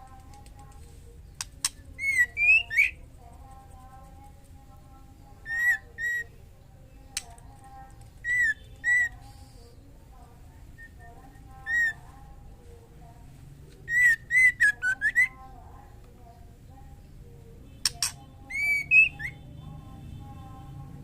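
Female white-rumped shama giving short, clear whistled calls in spaced groups of one to four notes, with a few sharp clicks between them, over a steady low hum. These are the calls of a female in breeding condition calling a male.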